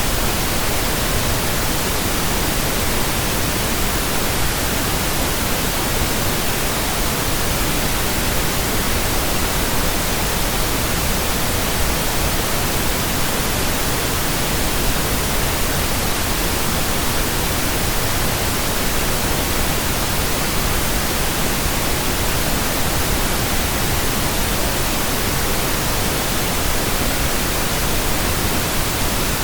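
Steady synthetic pink noise: an even hiss that never changes, with no tones or breaks in it.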